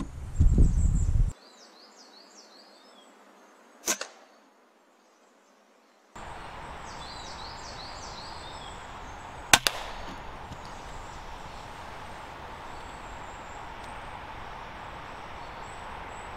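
Shots from a .22 Weihrauch HW100 PCP air rifle: a sharp crack about four seconds in, and a louder one just under ten seconds in, followed at once by a smaller crack. Small birds chirp between the shots, and there is loud low thumping and rustling in the first second.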